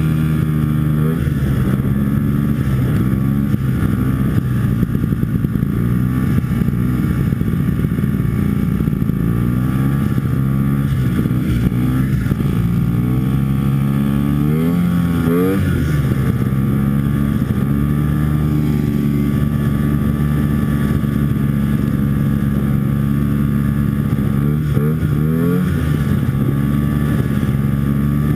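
Antique Ski-Doo snowmobile's two-stroke engine running at speed. The revs drop and climb again several times, most markedly about halfway through.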